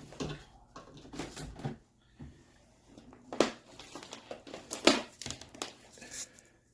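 Hands handling a laptop and its charger cable: rustling and scattered small clicks, with two sharper clicks about three and a half and five seconds in.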